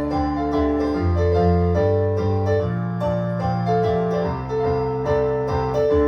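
Piano playing an instrumental passage without singing: held chords over a bass line that changes every second or so.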